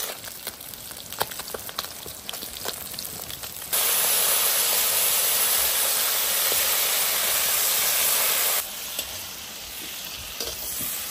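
Small crucian carp and stone moroko deep-frying in hot oil, sizzling steadily with scattered crackles. About four seconds in the sizzle turns abruptly much louder and more even for about five seconds, then drops back just as suddenly to the quieter frying.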